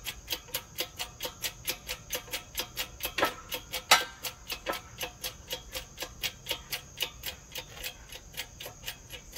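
Steady, rapid ticking, about four ticks a second, with two louder knocks a little after three and four seconds in.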